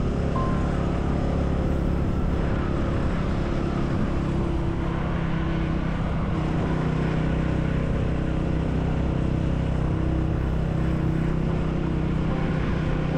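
Motorcycle engine running steadily while riding, with a continuous rush of wind and road noise.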